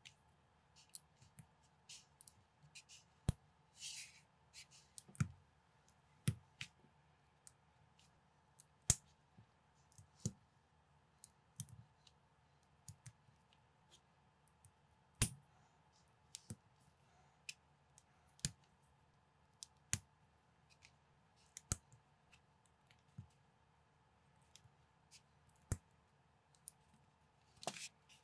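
Plastic building bricks clicking and snapping as they are pressed together and handled, in irregular clicks about every second with a few sharper snaps and a brief rustle of bricks twice.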